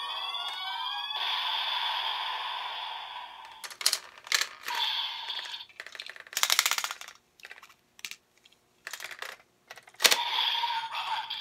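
Electronic sound effect from the DX Evol Driver toy belt's speaker, dying away about three seconds in. Then a run of sharp plastic clicks and short rattles as a gloved hand works the bottles in the belt's slots, with a fast burst of clicking in the middle and a loud click near the end.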